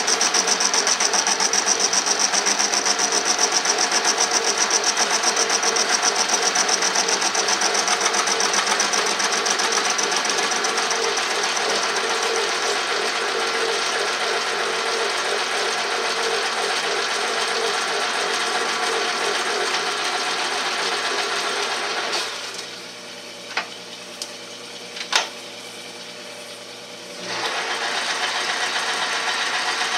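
10-inch Logan metal lathe running under power feed while a high-speed-steel tool bit takes a skim cut on a welded-up PTO gear part: a loud, steady machine sound with a fast, even ripple. About 22 seconds in it drops to a quieter hum, with two sharp clicks, then comes back up to full level about five seconds later.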